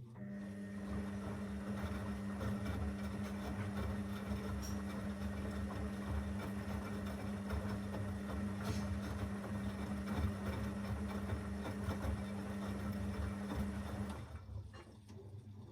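Zanussi FL984CN washing machine running with a steady hum and rushing noise. The hum starts abruptly and stops about fourteen seconds in.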